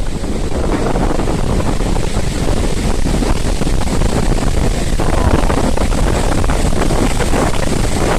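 Storm wind buffeting the microphone with a heavy low rumble, with gusts rushing through the forest trees; the rushing swells about five seconds in.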